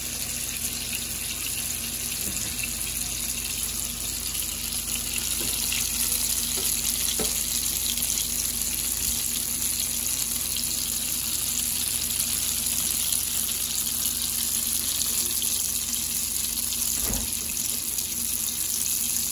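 Hot oil sizzling steadily as a pambazo, a bolillo dipped in red guajillo chile sauce, fries in a nonstick pan.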